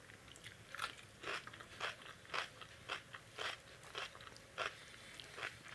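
A person chewing a mouthful of rice and dal close to the microphone, a steady chewing rhythm of about two chews a second that starts about a second in.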